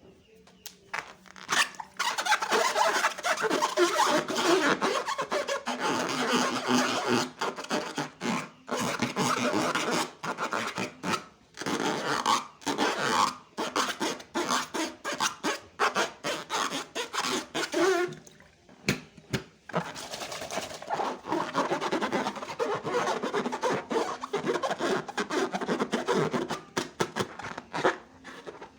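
Rubbing and scraping noise of slime and balloons being handled and worked by hand. It comes in spells broken by short pauses, with a longer lull about two-thirds of the way through.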